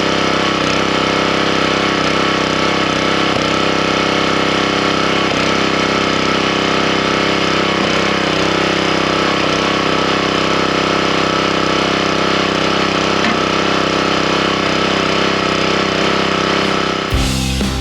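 Wood splitter's small gasoline engine running steadily. Guitar music cuts in just before the end.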